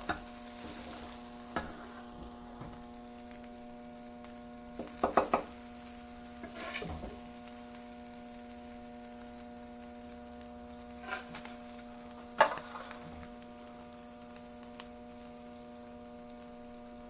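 Metal spatula scraping and clattering on the steel flattop griddle in a few short strokes, the loudest cluster about five seconds in and a sharp one near twelve seconds, as fillings are scooped into a bun. Under it, a steady electrical hum and faint sizzling.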